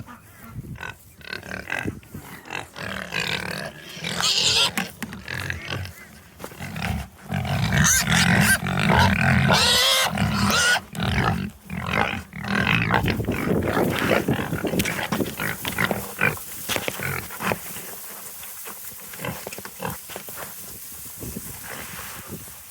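Pigs grunting and calling. The calls are loudest in the middle and die down near the end.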